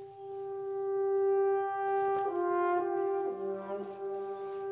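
Background score of held brass notes, a horn-like melody that moves to new notes about two seconds in and briefly drops to a lower note near the end.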